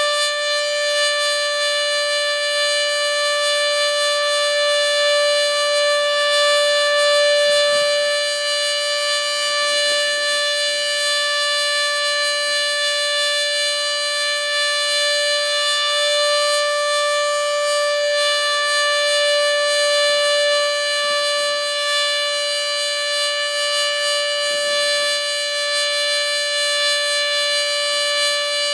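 Sterling 2V8 outdoor warning siren sounding the steady Alert signal: one loud, unbroken tone that holds its pitch.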